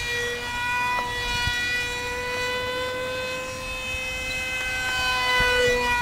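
Mini Horten RC flying wing's motor whining steadily in flight, one high tone with small wavers in pitch and a slight step about a second in.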